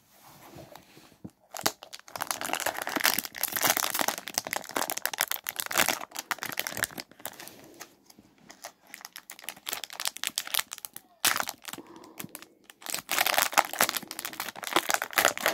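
Metallic foil wrapper of a 1991 Fleer Ultra baseball card pack crinkling and tearing as it is opened by hand. The crackling comes in bouts, with two short pauses.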